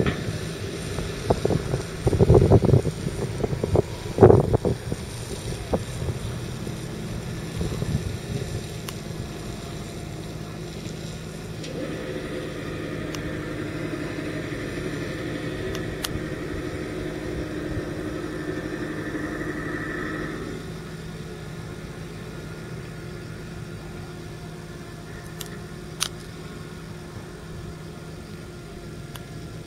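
Fendt 927 Vario tractor's 7.8-litre six-cylinder turbodiesel running steadily while hauling a loaded water tanker, with a few loud thumps in the first five seconds. The engine note grows clearer in the middle, then drops off about two-thirds of the way through as the tractor moves away.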